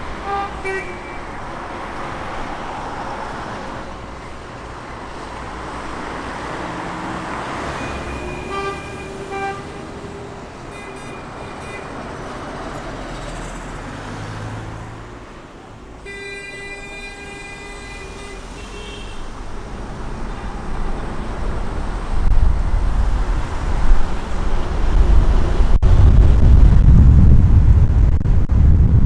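City road traffic: a steady wash of passing cars and buses, with several short horn toots, near the start, around a third of the way in and past the middle. Over the last several seconds a loud low rumble builds and drowns out the rest.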